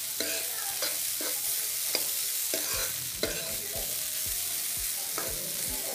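Boiled sweet corn kernels and onion sizzling lightly in a frying pan while a steel ladle stirs them, scraping across the pan about every half second.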